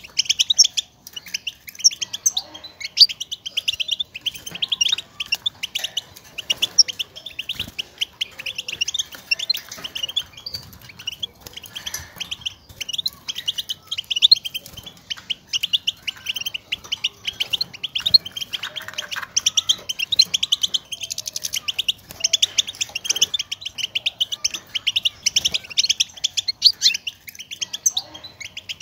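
European goldfinch calling: a fast, unbroken run of short, high twittering chirps, the contact calls that goldfinches use to call to one another and that set a caged male singing.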